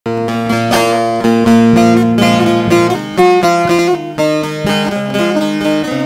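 A bağlama (long-necked Turkish saz) played solo with a plectrum: a quick melodic line of plucked notes over held low notes, an instrumental lead-in to a folk song.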